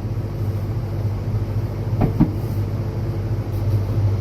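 Steady low hum of the cold room's refrigeration unit running. Two knocks come about two seconds in.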